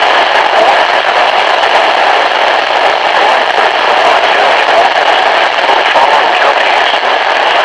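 Radio static: a loud, steady hiss confined to a narrow middle band, as heard from a weakly received broadcast through a radio's speaker.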